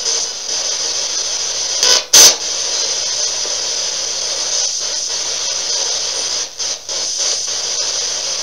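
Spirit box sweeping through radio static: a steady loud hiss, with a short loud burst about two seconds in and a couple of brief dropouts about two-thirds of the way through.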